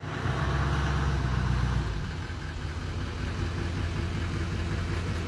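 A steady machine hum with an even hiss over it, louder for the first two seconds and then a little lower.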